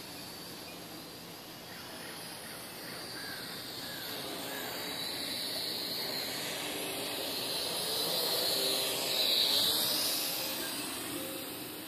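Small electric quadcopter's motors and propellers whining, growing gradually louder to a peak about nine to ten seconds in, with a brief dip in pitch, then fading as it moves away.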